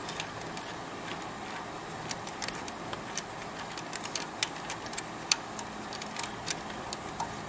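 Light, irregular clicks of metal as a long camshaft pulley bolt is spun out of its threads by hand, over a steady faint hiss.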